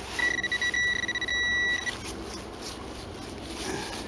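Metal detector tone sounding over a buried metal target: a high-pitched beep that stutters at first, then holds steady for about a second and a half before stopping.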